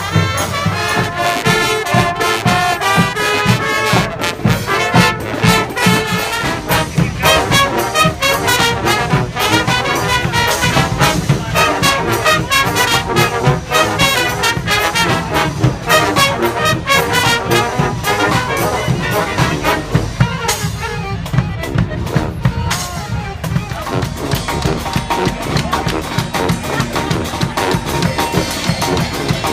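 Street marching brass band playing: trumpets and trombones carrying the tune over a steady, driving drum beat.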